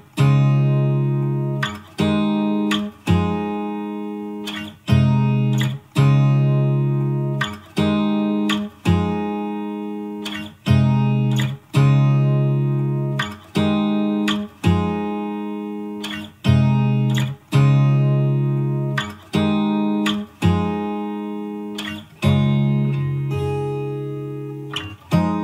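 Background music: guitar chords plucked about every one to two seconds, each left to ring and fade.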